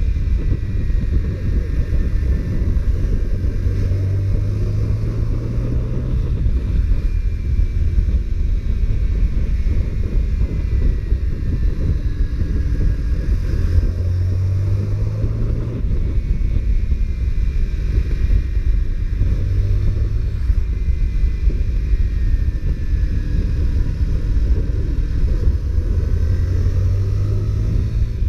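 Honda CBR125R's single-cylinder four-stroke engine under way, its pitch rising and falling several times, under heavy low wind rumble on the microphone.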